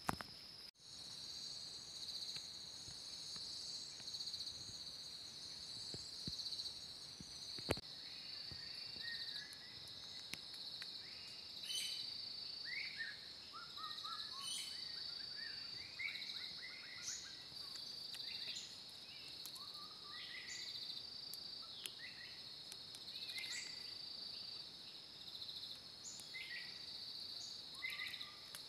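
Insects keep up a steady high-pitched drone while birds in the forest canopy call with many short chirps and falling whistles, starting about eight seconds in. A single sharp click comes just before the bird calls begin.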